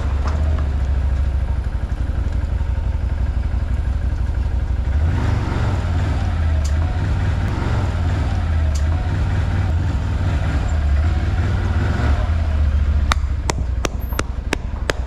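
ODES 650 Pathcross ATV engine running at low speed as the quad creeps along, a steady low rumble that swells briefly a couple of times. Near the end, a quick series of sharp clicks.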